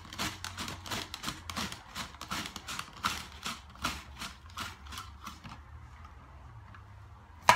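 Red onion pushed back and forth in its hand guard over a mandoline slicer's julienne blades, a quick run of even scraping strokes, several a second, that thins out near the end. A louder clatter comes right at the end.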